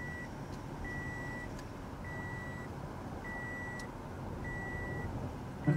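Electronic beeper sounding a steady high beep about once every 1.2 seconds, five times, over a low steady rumble.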